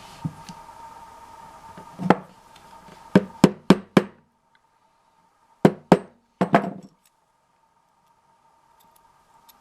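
Small wheels being lightly tapped onto a 1:64 die-cast car's axles: a series of sharp light taps, one, then a quick run of four, then about three more.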